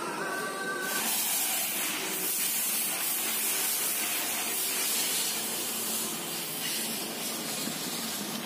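A steady, loud hiss of spraying water that starts suddenly about a second in, after a brief high tone in the first second.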